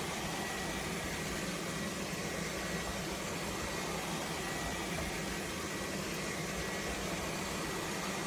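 Robot vacuum cleaner running steadily: an even motor and fan whir with a low hum and a faint high whine.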